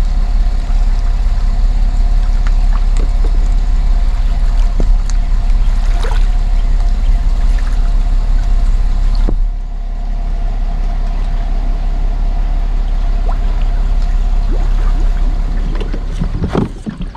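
Water sloshing and gurgling around a kayak, under a steady low rumble of wind on the microphone. The sound drops abruptly about nine seconds in, and a few sharp knocks come near the end.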